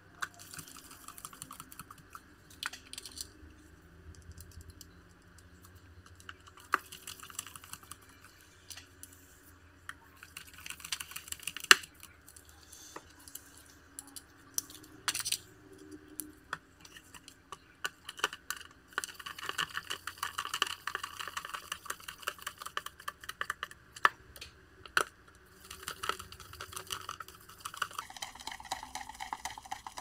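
Precision screwdriver driving small screws into a laptop's back cover, with irregular light clicks and scraping as the bit turns and the panel is handled. A few sharper clicks stand out about 12 and 15 seconds in.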